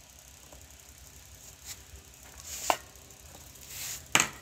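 Leather glove lace being drawn through the web holes of a baseball glove: soft rubbing swishes, with a sharp click about two and a half seconds in and a louder one near the end.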